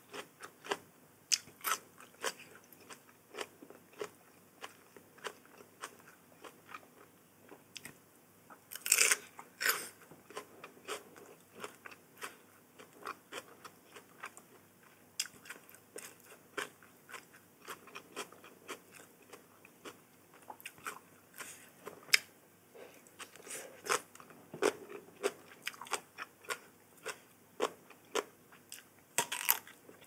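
A person chewing and crunching food, with frequent irregular sharp crunches of bites. A louder cluster of crunches comes about nine seconds in and another near the end.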